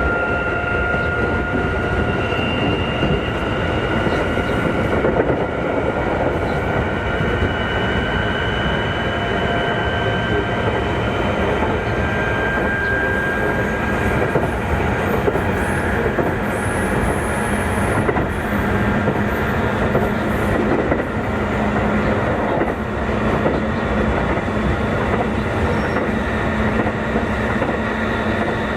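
Keikyu 2000-series electric train heard from inside a motor car: the traction motors whine in several tones that rise slowly over the first half as the train picks up speed, then hold steady, over continuous wheel-on-rail noise and rail-joint clickety-clack. This car's motors, which the recordist takes for Mitsubishi-built, give a growl unlike the rest of the class. A short high squeal comes about two thirds of the way through.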